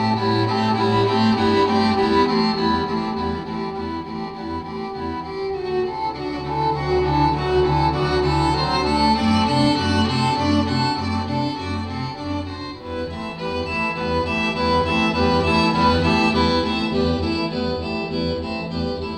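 Music with bowed strings, violin and cello over a moving bass line, played back through HiFiMan Audivina headphones as a sound demo.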